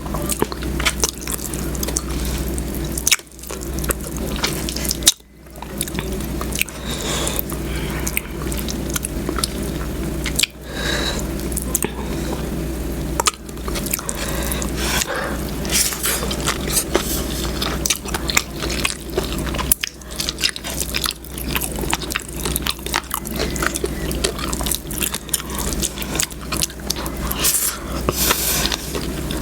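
Close-miked eating sounds: wet chewing, lip smacking and sauce-slick clicks from someone eating squid in adobo sauce, with a steady low hum underneath.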